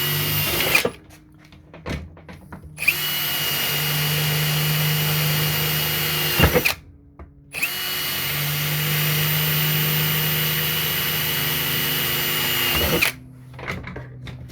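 Power drill with a cobalt twist bit drilling into aluminium, in three runs at a steady motor whine. It stops about a second in, runs again from about three to six and a half seconds, then from about seven and a half to thirteen seconds, with short handling noises in between.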